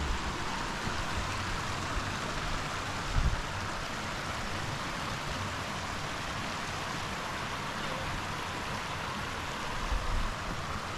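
Shallow rocky river rushing steadily over stones. A brief low thud about three seconds in and again near the end.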